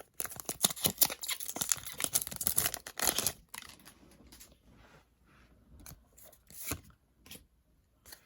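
A foil Pokémon TCG booster pack wrapper torn open with crinkling for about three seconds, followed by softer rustling of the wrapper and cards being handled.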